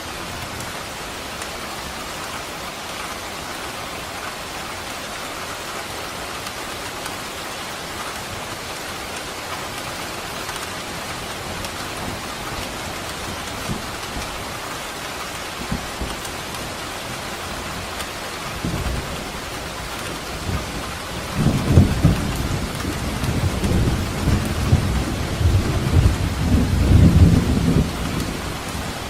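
Steady heavy rain hiss, joined about two-thirds of the way through by low rolling thunder that swells in surges and dies away just before the end.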